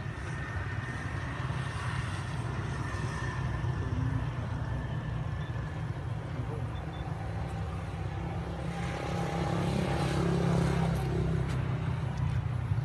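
Steady low engine rumble of a vehicle, growing louder with a wider rush of noise from about nine to eleven seconds in.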